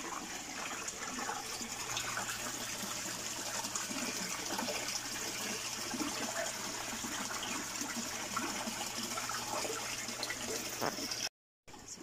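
Water from an overflow pipe pouring steadily into an aquaponics sump tank, a continuous splashing gush.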